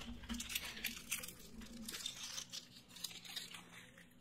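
Chocolate wrapper crinkling and tearing as it is unwrapped by hand, a run of sharp crackles that thins out near the end.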